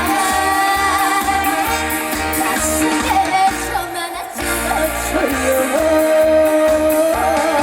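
A female singer singing a trot song live over musical accompaniment with a steady low beat, holding long, wavering notes, with a brief break about four seconds in.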